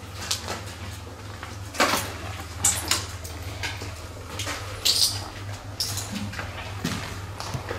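Footsteps and shuffling on a debris-strewn floor: a handful of irregular short crunches and scrapes, the loudest about two, three and five seconds in, over a steady low hum.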